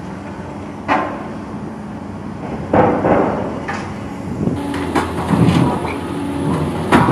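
Excavator engine running steadily under the work of an Indeco ISS 45/90 hydraulic steel shear cutting bridge steel, with sharp clanks and knocks of steel pieces striking each other and the rubble: one about a second in, the loudest near three seconds in, and a run of knocks in the second half.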